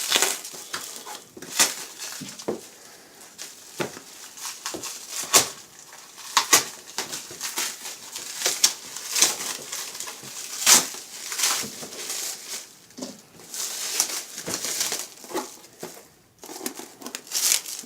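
Plastic wrapping film crinkling and rustling in bursts as it is handled and pulled off a cardboard box.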